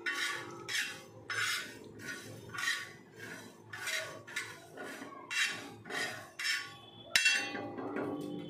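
Spatula scraping and stirring dry mustard, carom and fenugreek seeds across a hot iron tawa, in regular strokes about one and a half a second as the spices are dry-roasted. A sharper knock about seven seconds in, with a faint steady hum underneath.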